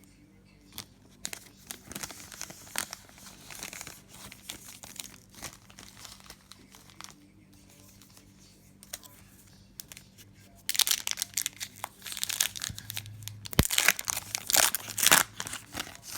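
Foil wrapper of a trading card pack crinkling and tearing, with light scattered clicks of handling at first and two loud spells of crinkling about eleven and fourteen seconds in.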